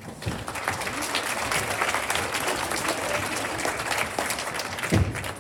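Audience applauding, many hands clapping at once, with a single low thump about five seconds in.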